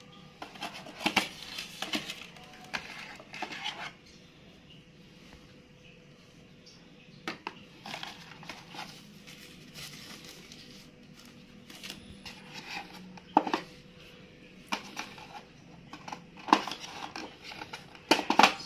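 Packaging being handled while a smartphone is unboxed: rustling of paper wrapping and clacks and scrapes of cardboard box pieces, in scattered bursts with quiet gaps between.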